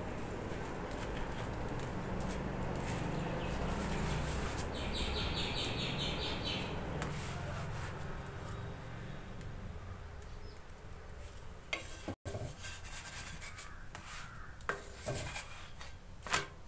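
Wooden spatula rubbing and pressing a chapati on an iron tawa, with a few sharp taps against the pan in the last few seconds and a low rumble through the first half. A bird chirps briefly about five seconds in.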